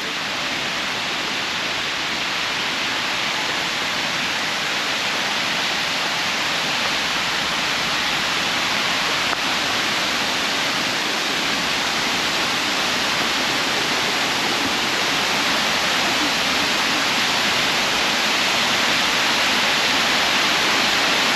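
Steady rush of water from the Lechfall, a waterfall on the Lech river, a constant hiss that grows slowly louder.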